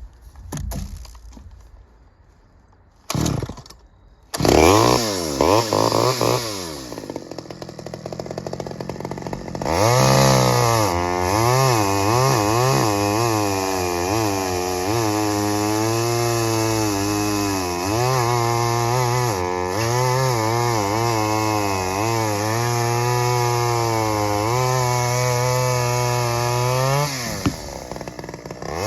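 Stihl 009L 41 cc two-stroke chainsaw revving up, then running under load for about seventeen seconds, its pitch dipping and recovering as it cuts through wood, before easing off near the end.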